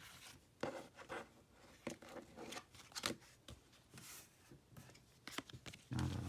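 Pokemon trading cards being handled and flipped through: faint, scattered rustles and light clicks of card stock. A louder, lower sound starts near the end.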